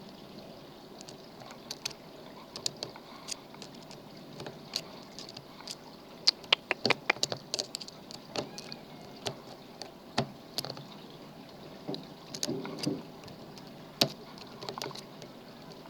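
Irregular sharp metal clicks and light scraping of a lock pick and tension wrench working the pins of a lock, with a quick run of clicks about six to seven seconds in.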